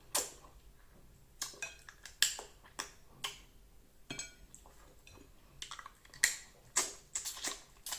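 Hard bones being cracked and crunched between the teeth: a string of sharp cracks at irregular intervals.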